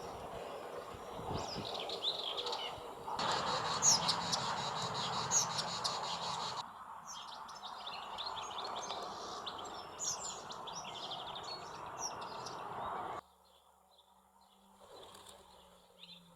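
Wild birds calling and singing in short chirps and trills over steady outdoor background noise. The background changes abruptly three times, about 3, 7 and 13 seconds in, and is much quieter after the last change.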